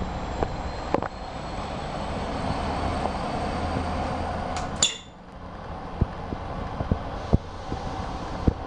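Sleeper train pulling slowly out of the station with its carriage door open: a steady rumble and hum, then about five seconds in the door shuts with a sharp clunk and a brief ring, and the sound turns muffled. After that come a few separate clicks of the wheels on the rails.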